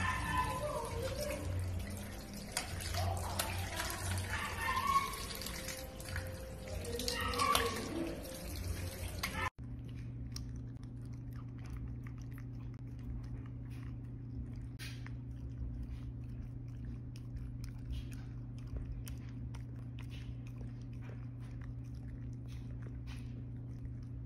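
Tap water running and splashing while a wet dachshund is bathed, with a voice faintly under it. After a sudden cut about ten seconds in, a steady low hum with faint small clicks as a dachshund eats a treat.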